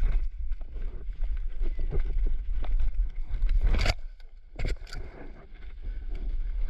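A player running with a body-worn camera: footfalls and gear rattling over a low rumble on the microphone. About four seconds in comes a heavy thud as he dives head first and hits the ground, followed by a couple more knocks and rustling in the grass.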